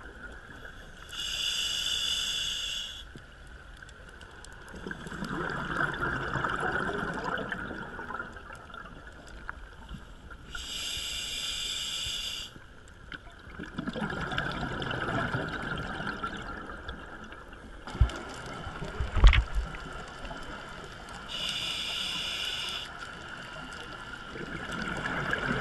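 Scuba diver breathing underwater through a demand regulator: three hissing inhalations about ten seconds apart, with a long rush of exhaled bubbles between them. Two sharp knocks come about three quarters of the way through.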